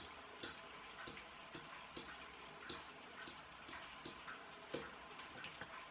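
Faint ticking, about two ticks a second and slightly uneven, over quiet room tone.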